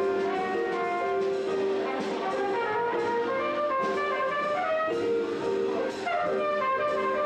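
Live small-group jazz: a trumpet plays a melodic line of held and moving notes over electric keyboard and upright bass accompaniment.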